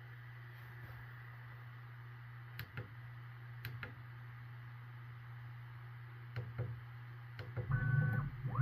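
Bambu Lab P1P 3D printer running with a steady low fan hum and a few light clicks, then near the end its motors start moving with louder whining tones, one rising and falling.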